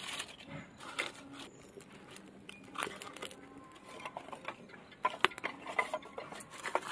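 Paper and dry leaves catching fire in a clay mud stove, crackling irregularly as flat wooden sticks are fed in. A run of sharper clicks and crackles comes about five seconds in.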